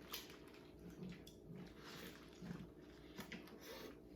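Faint eating noises: soft wet mouth sounds and light clicks at irregular intervals, over a low steady room hum.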